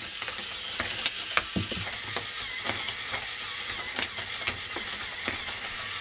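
K'nex ball machine running: a steady plastic rattle, with sharp clicks at irregular moments, roughly one a second.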